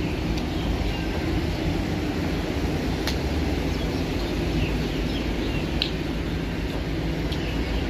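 Steady hum of a vehicle engine running amid street noise, with two sharp clicks, about three seconds in and again near six seconds.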